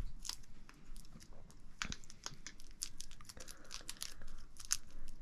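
Packaging being handled: an irregular run of small clicks, rustles and crinkles as a knife box and its wrapping are worked open.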